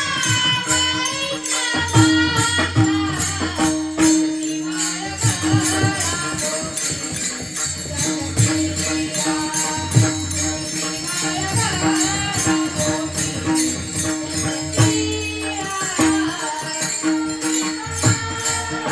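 Warkari kirtan music: a woman singing over jingling metal percussion that keeps a fast, even beat. Low drum strokes and a held drone-like tone run underneath, and the singing is clearest near the start.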